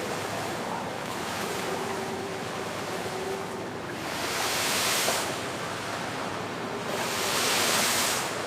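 Steady rushing noise of wind and rain in stormy weather, swelling twice to a louder hiss.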